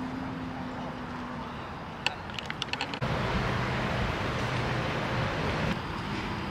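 Steady outdoor background noise with a low hum, and a quick run of sharp clicks about two seconds in. The background shifts abruptly and gets louder about three seconds in.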